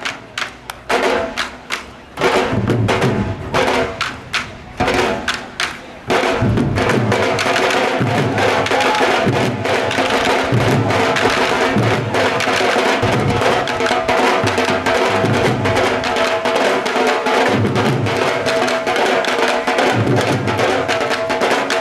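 Dhol drums played live in a fast bhangra rhythm. About six seconds of separate strikes with short gaps, then dense, unbroken drumming with a deep bass stroke every second or two.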